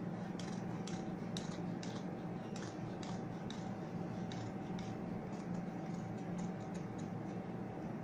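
Tailor's scissors snipping out a petal shape from cloth: irregular short clicks, several a second at first and sparser later, over a steady background hum.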